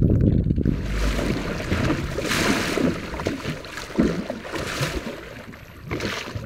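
Water rushing along a moving boat's hull with wind buffeting the microphone. There is a burst of splashing about two seconds in, and another near the end as a dolphin surfaces beside the boat.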